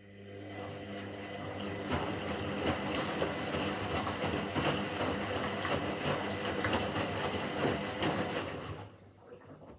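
Washing machine motor turning the drum, a steady hum with rattling and clicking that builds over about a second, holds, then stops near the end.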